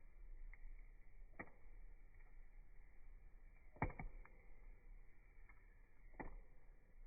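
Wood fire crackling softly, with a few sharp pops spread out, the loudest a quick double pop about four seconds in.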